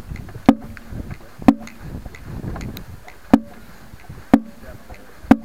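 Marching snare drum jolted as its player walks: sharp knocks with a short drum ring, about one a second with a longer gap in the middle, over a low rumble of movement.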